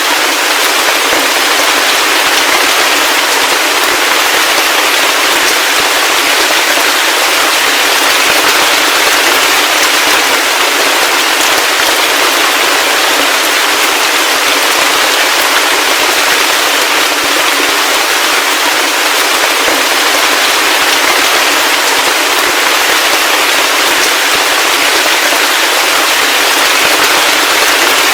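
Heavy rain falling steadily: a loud, even hiss of many close drop impacts with a fine crackle and no low rumble.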